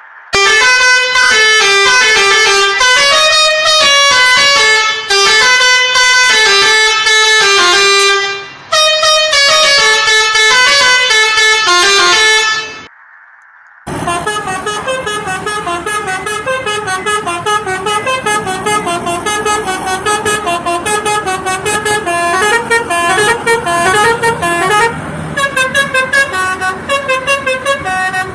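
Telolet musical air horn playing melodies of stepped, clear notes. After a short break about halfway through, a second, quicker tune starts.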